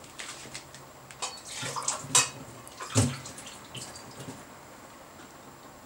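Warm water being poured out of a glass, with a few sharp clinks and knocks, the loudest about two seconds in.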